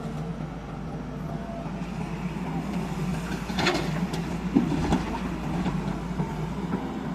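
Heavy diesel machinery running steadily at a low, even pitch, with a short patch of clatter and knocks a little past halfway.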